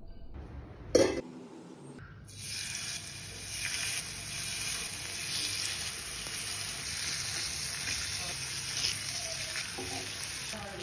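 Marinated fish steaks shallow-frying in hot oil on a tawa: a steady sizzle that starts about two seconds in. A single sharp knock sounds about a second in, before the sizzle.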